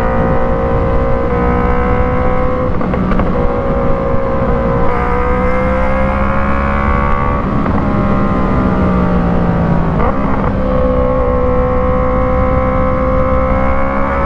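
Yamaha MT-03 parallel-twin engine running through an aftermarket Arashi exhaust fitted with a dB killer. The note is steady and still loud, with small rises and brief dips in pitch.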